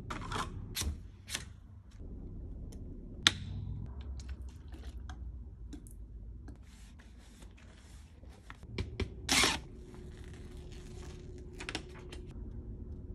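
Rustling and crinkling of packaging and a plastic adhesive frame-guard sheet being handled, with scattered small clicks and one louder, brief rustle about nine seconds in. A faint steady hum sits underneath in the last few seconds.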